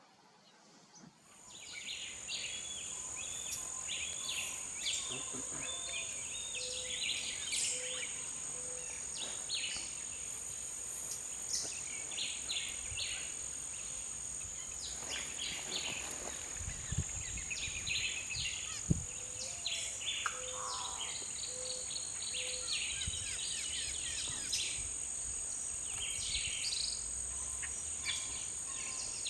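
Wild birds chirping and calling with many short notes over a steady high-pitched insect drone, starting about a second in. A low note repeated four or five times is heard twice, about a quarter of the way in and again past two-thirds.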